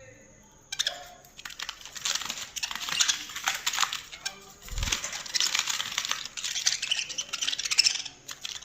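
Budgerigars chattering and warbling: a fast, scratchy run of clicks and squeaks that starts about a second in and carries on almost to the end, with a short low bump about halfway through.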